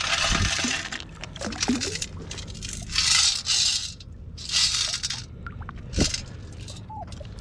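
Sand and gravel rushing and crunching in a metal-detecting sand scoop as it is shaken to sift out a target, in several short bursts, with a sharp knock about six seconds in. A few brief faint tones follow near the end.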